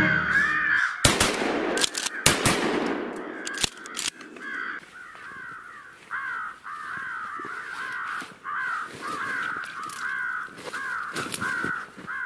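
Crows cawing over and over, about two harsh caws a second. A few sharp cracks come in the first few seconds, the loudest about two seconds in.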